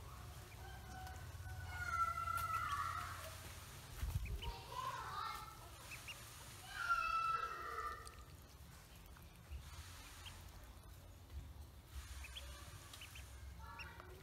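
Poultry calling: three loud drawn-out calls in the first seven seconds or so, then only a few faint short peeps.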